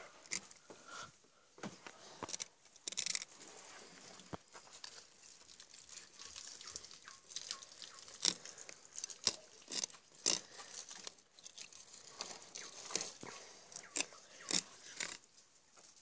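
Filleting knife cutting through a snapper's flesh and scraping along its bones, with irregular crunches and sharp clicks.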